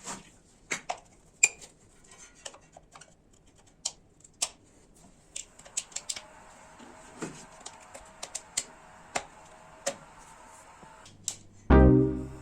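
Irregular sharp clicks and knocks, like hard objects being handled and set down, with a faint steady hum joining about halfway through. Background music with a strong beat starts near the end and is the loudest sound.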